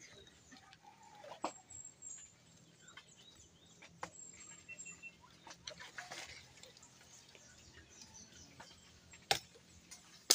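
Firewood sticks knocking and clattering as they are handled and sorted, a few scattered knocks with a sharp, louder one about nine seconds in. Faint bird chirps in the background.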